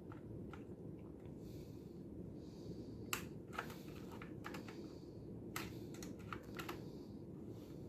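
Faint, scattered light clicks and taps, irregular and a few at a time, over a steady low hum; the clicks come closer together in the second half.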